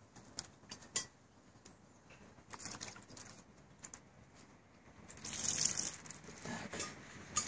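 Water splashing in a cast-iron kazan as it is rinsed by hand, with scattered small knocks and one louder rush of water about two-thirds of the way in.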